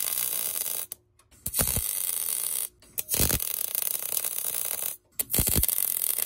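Wire-feed MIG welder arc crackling and sizzling as it lays a weld bead on a car's lower radiator support bar. It comes in four bursts, with short breaks about a second in, near three seconds and about five seconds in as the trigger is released.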